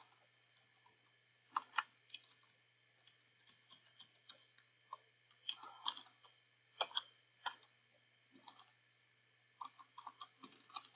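Irregular, faint clicks of a computer keyboard being typed on, coming singly, in pairs and in short runs, over a faint steady low hum.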